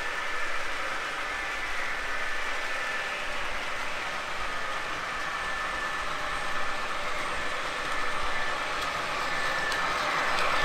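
O scale model train running on three-rail track: a steady rolling and running noise with a thin high steady tone, growing louder near the end as the train approaches.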